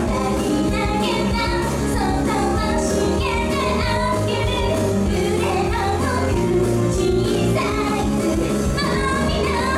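A teenage girl singing a pop song live into a handheld microphone over a recorded backing track.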